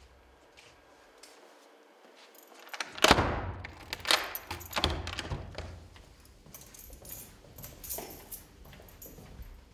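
A door handle worked and rattled with clicks and knocks from the latch, loudest about three seconds in, followed by footsteps on a hard floor near the end.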